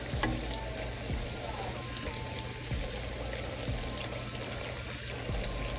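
Squash slices frying in a pan of hot oil: a steady sizzling, bubbling hiss.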